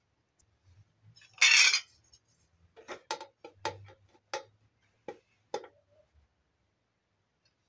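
Metal spoon and aluminium colander of parboiled rice: a loud scraping clatter about a second and a half in, then about seven sharp metallic clinks with a short ring as the spoon scoops rice and knocks against the colander.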